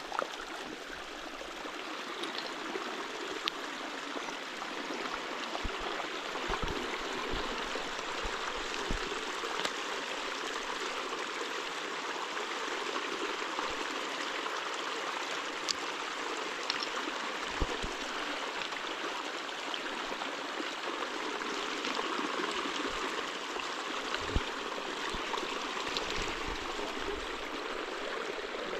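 Water running in a steady rush, with a few soft knocks now and then.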